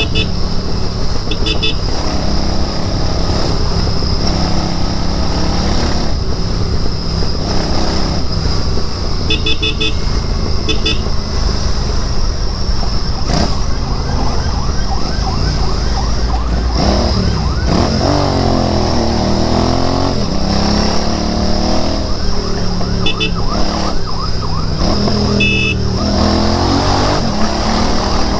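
Royal Enfield Interceptor 650's 648 cc parallel-twin engine running steadily while riding in traffic. Short high beeps come a few times, and a siren rises and falls in the second half.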